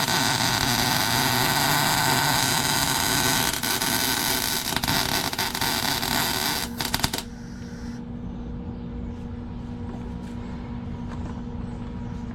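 MIG welding arc crackling steadily, cutting off abruptly about seven seconds in; a faint steady hum remains afterwards.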